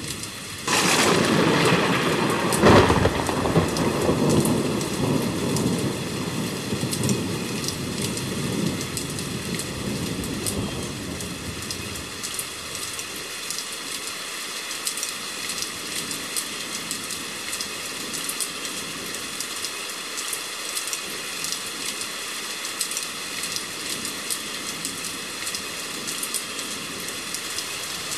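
A thunderclap breaks in suddenly about a second in, with a sharp crack a couple of seconds later, then rumbles and fades away over about ten seconds. Steady heavy rain runs underneath and carries on alone, with individual drops ticking.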